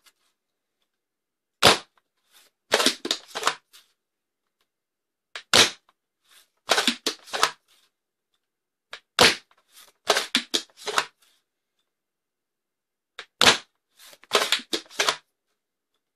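Four shots from a spring-powered foam dart blaster, an X-Shot Longshot Pro fitted with a Swin B-Car barrel, each a sharp crack about four seconds apart. About a second after each shot comes a quick run of clacks as the bolt is worked to prime the next one.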